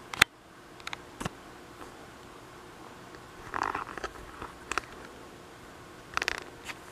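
Handling noise on a handheld camcorder: a few sharp clicks and knocks, the loudest just after the start, and a short rubbing scrape in the middle, over steady microphone hiss.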